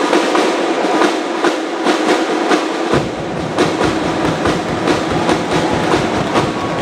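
Pep squad drums beating a rhythm over a dense wash of cheering, echoing in the arena. A deeper drum layer joins about three seconds in.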